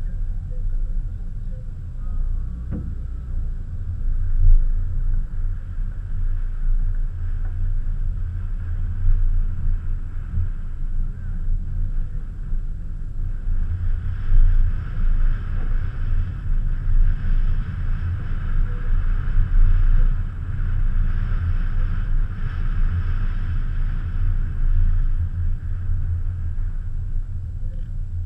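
Car driving at low speed, heard from inside the car as a steady low rumble of engine and road. About halfway through, a higher hiss of tyre and road noise grows, then eases near the end.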